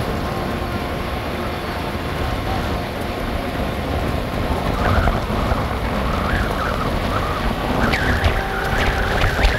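Pickup truck driving along a mountain road: a steady engine and road-noise rumble heard from the cab. From about halfway, fainter wavering higher-pitched sounds and a few sharp clicks come in over it.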